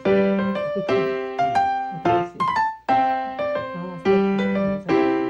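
Background piano music: a slow run of single notes and chords, each struck and left to ring.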